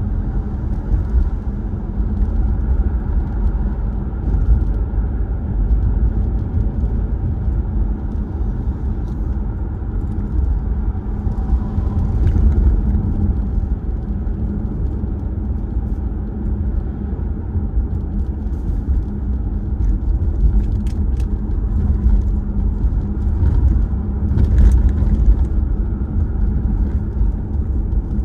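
A car driving along a road: a steady, low rumble of engine and tyres with a constant hum, and a few brief clicks or knocks in the second half.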